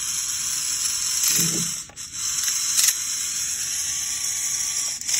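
Vex IQ smart motor driving the elevator lift's 12-tooth gears along the plastic linear track: a steady high whir of motor and gears, briefly cut about two seconds in.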